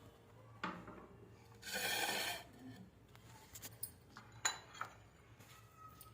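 Quiet kitchen handling sounds: a few light clinks of kitchenware, and a brief rubbing noise about two seconds in.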